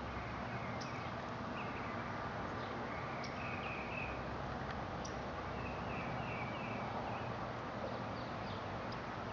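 Steady outdoor background noise with faint bird chirps: short runs of a few quick notes, heard three or four times, with a few thin high ticks.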